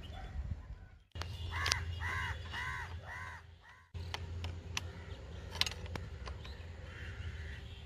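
Crow cawing, a run of about six caws at roughly two a second, with a few sharp clicks.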